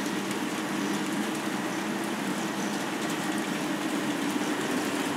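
Three K'nex electric motors running together, driving the plastic gearing and program tapes of the robot's control modules after being switched into running mode: a steady mechanical whir with a low hum.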